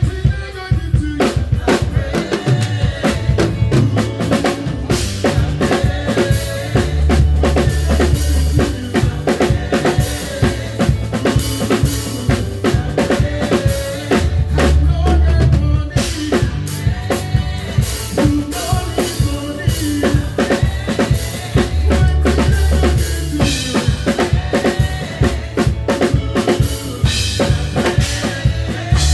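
A live band playing a song, with the drum kit loud and up front: kick drum, snare and cymbals hit in a busy pattern over long held bass notes and other pitched instruments.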